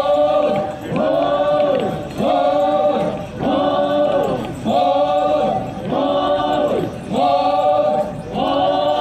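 A troupe of Naga warriors chanting in unison: a short group call repeated about once a second, its pitch rising and then falling each time.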